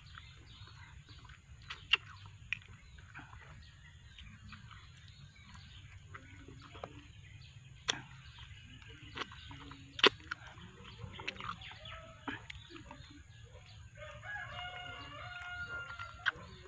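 A rooster crowing once near the end, a call of about two seconds. Over a faint steady background, sharp wet clicks and smacks come a few times from eating soft Java plums close to the microphone.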